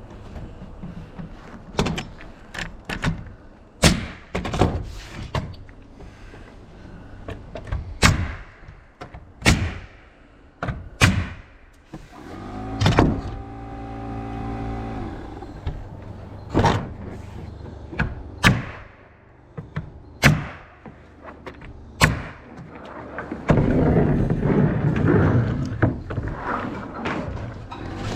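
Sharp knocks, about a dozen spaced irregularly, of nails being driven into roof sheathing, over a steady low rumble.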